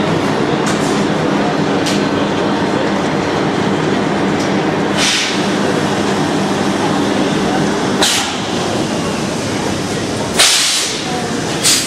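SNCF BB 22200-class electric locomotive running at close range with a steady drone and low hum. Short, sharp hissing bursts come about five and eight seconds in, with a louder one at about ten and a half seconds and another just before the end.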